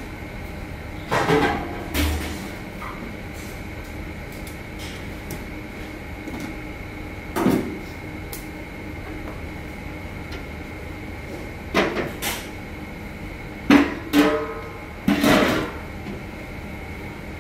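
Metal kitchenware knocking and clanking in a commercial kitchen: about eight sharp knocks, some ringing briefly, two a little after the start, one near the middle and a quick cluster near the end, over a steady hum.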